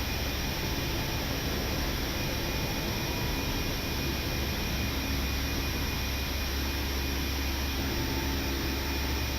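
Steady cockpit noise of an Airbus A319 climbing just after takeoff: engine and airflow noise with a low hum and faint steady whining tones.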